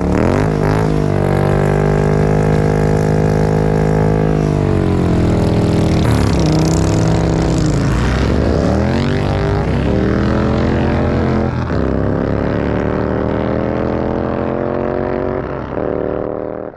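Indian Challenger motorcycle's V-twin engine running loud, its pitch rising and falling as the revs go up and down several times before holding steady.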